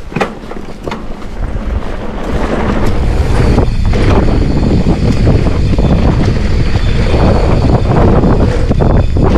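Wind buffeting a helmet-mounted camera's microphone, with tyre rumble from a mountain bike rolling down a dirt trail. The rush builds over the first three seconds as the bike gathers speed, then stays loud and steady.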